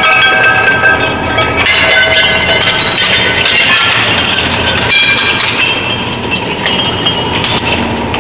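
Twin-shaft shredder crushing a white ceramic plate: a dense run of clinking, cracking and ringing as the plate shatters between the cutter discs. The shredder's drive hums steadily underneath.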